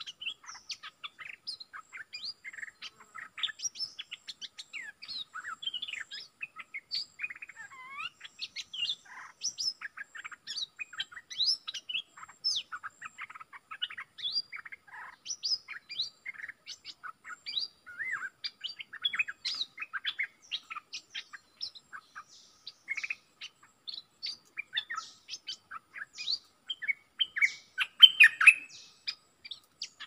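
Merbah lekir bulbul singing: a dense, unbroken run of quick chirps and short whistled notes, loudest about two seconds before the end.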